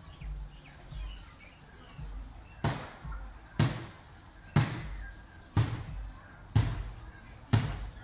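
A steady beat of thumps, about one a second. They start as low thuds and become sharp knocks from about two and a half seconds in. Faint bird chirps can be heard at the start.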